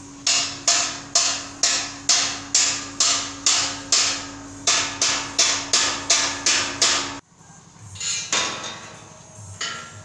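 Hammer blows struck at an even pace, about two a second, each with a short ringing tail, over a steady low hum; both stop abruptly about seven seconds in, leaving only faint scattered knocks.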